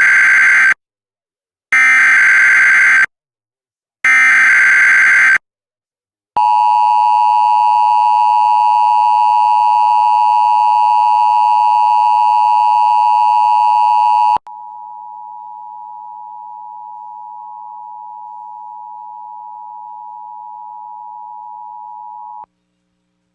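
Emergency Alert System tones: three short bursts of SAME header data, then the two-tone attention signal held steady for about eight seconds. It is followed by a quieter single steady tone for about eight more seconds that cuts off abruptly, signalling that a tornado warning is about to be announced.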